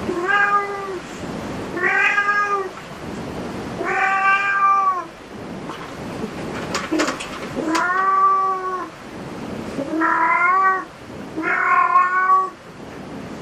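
A domestic cat meowing repeatedly: six drawn-out meows, each about a second long and rising then falling in pitch, coming about every two seconds.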